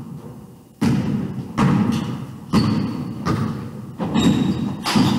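Basketball bouncing on a hardwood gym floor, about six bounces, a little over one a second, each echoing in the large hall.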